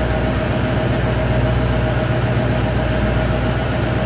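The 6.6-litre Duramax V8 turbodiesel of a 2011 GMC Sierra 2500 HD idling steadily, with a constant whine over the low engine note.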